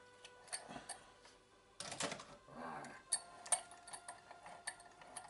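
Small irregular clicks and taps with a brief rustle, from hands working a cable's wires and a small plug while soldering its pins.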